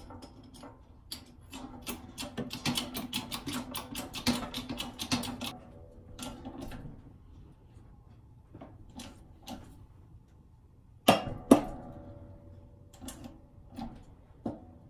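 A hand-lever press pushing a steel pin back into a steering shaft joint. For the first few seconds there is a dense run of rapid metal clicks and creaks, then scattered clicks and two loud sharp knocks about eleven seconds in.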